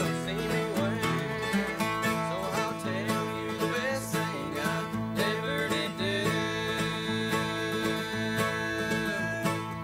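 Bluegrass band playing live: banjo picking, resonator guitar, mandolin, acoustic guitars and electric bass together. A long held note sounds from about six seconds in until near the end.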